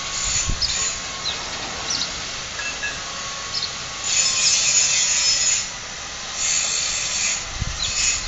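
Long rasping scraping strokes, each lasting about a second and a half, two strong ones in the second half and fainter ones before them, with a few short, high chirps now and then.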